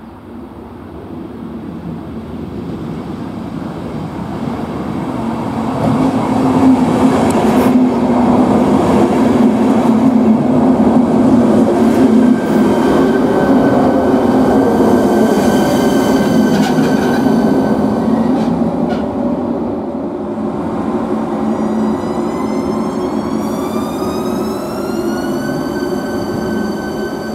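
ČD class 471 CityElefant double-deck electric unit running in past the platform: wheel and rail rumble swells to its loudest as the unit goes by, with a faint electric whine falling in pitch. From about two-thirds of the way through, an electric whine rises in pitch over a few seconds and then holds steady as the rumble eases.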